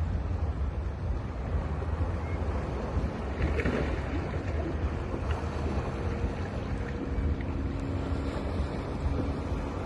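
Sea waves washing onto a beach, with wind buffeting the microphone as a constant low rumble. One wave breaks louder about three and a half seconds in, and a faint steady hum joins in the second half.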